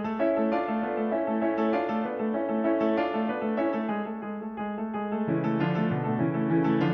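Background piano music: a steady pattern of repeated notes over a lower accompaniment.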